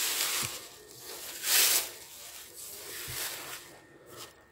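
Plastic bubble-wrap packing rustling and crinkling as a small Bluetooth speaker is pulled out of it, in a few noisy bursts, the loudest about a second and a half in, then fading to faint rustles near the end.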